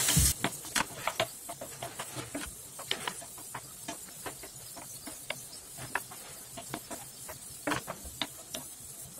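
A spatula clicks and scrapes against a nonstick frying pan as marinated chicken pieces are stirred in it dry, over a faint sizzle as the water released from the chicken cooks off. A louder sizzle drops away sharply just after the start, and the irregular clicks then come two or three a second.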